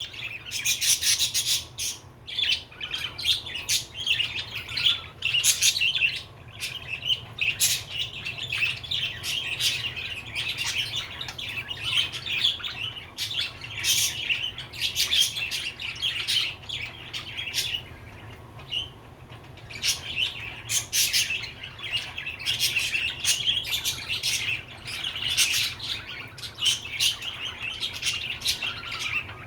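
Budgerigar chirping and chattering almost without pause, rapid warbled notes with sharp clicks mixed in, easing off briefly around the middle.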